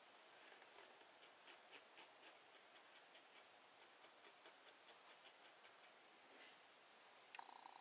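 Near silence with faint quick ticks, about four a second, stopping about six seconds in.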